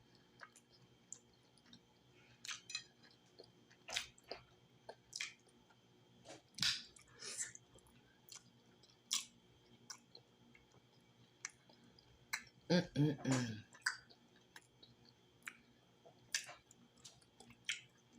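Close-up wet chewing and lip-smacking on soft, gelatinous cooked cow foot, with scattered sharp smacks and clicks. A short voiced hum about two-thirds of the way through.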